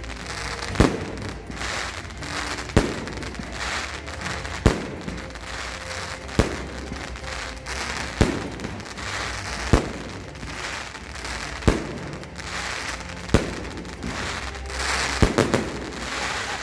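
Consumer firework battery (cake) firing: a sharp bang roughly every two seconds, with crackling between the shots, and a quick run of three bangs near the end.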